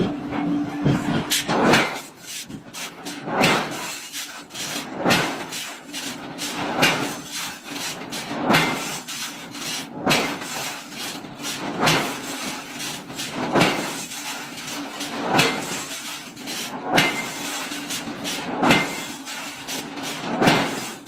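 A heavy machine working in a regular cycle: a loud stroke comes about every 1.7 seconds over a faint steady hum.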